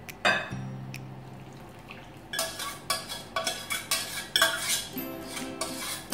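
Metal spoon and stainless-steel saucepan clinking and scraping as melted butter and sugar are emptied into a glass bowl of biscuit crumbs. A single knock comes right at the start, and a run of quick clinks begins about two seconds in.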